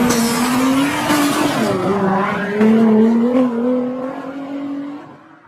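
A car at speed, with a steady, slightly wavering whine over road noise, fading out near the end.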